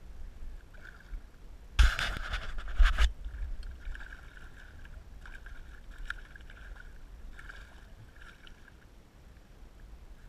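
A hooked redfish thrashing and splashing at the surface beside the boat, loudest about two seconds in and lasting about a second. Then a spinning reel is wound in short spells of whirring as the fish is brought alongside.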